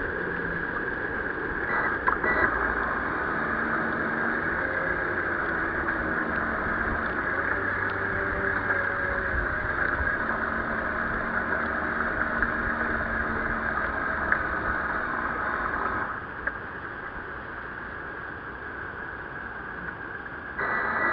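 Water rushing and splashing against the hull of a 1-metre-class radio-controlled sailboat as it sails through choppy water, heard from on board. The sound drops noticeably quieter about 16 seconds in.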